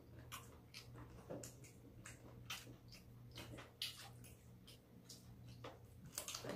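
Faint eating sounds: chewing and mouth smacks with scattered light clicks of a spoon and chopsticks, over a low steady hum.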